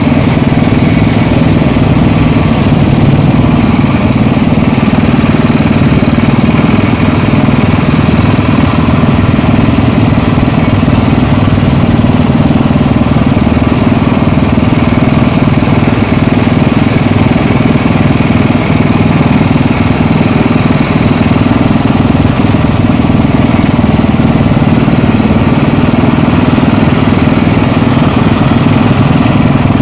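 Small petrol engine driving a sugarcane juice press, running steadily.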